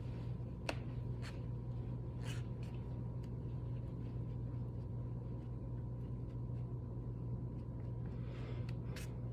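Quiet room tone: a steady low hum with a few faint light ticks or taps, one about a second in and another near the end.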